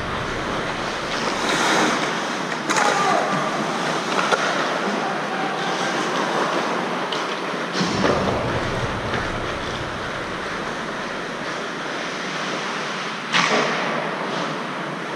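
Hockey skates carving and scraping across ice during play, a steady rushing noise with several sharper scrapes.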